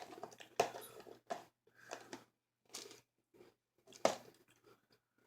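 Close-up crunching and chewing of a crunchy peppermint chocolate sandwich cream cookie, in irregular crunches with short pauses between them.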